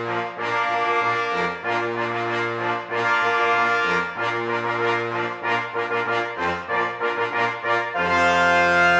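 Background music: a jaunty brass tune over a low bass line that moves from note to note. It settles on a fuller held chord near the end.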